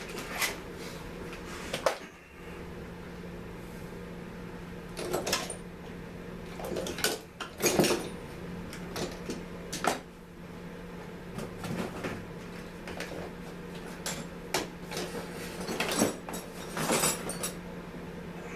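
Hands and tools working on small trimmer parts: intermittent clicks, taps and short scrapes at irregular intervals, over a steady low hum.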